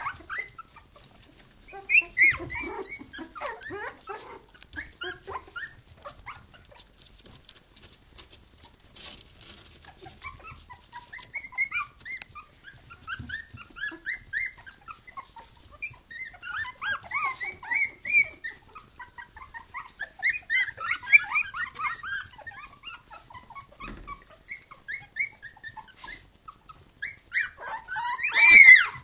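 Three-week-old Tibetan terrier puppies vocalizing: many short high-pitched calls overlapping in bouts, with the loudest cry near the end.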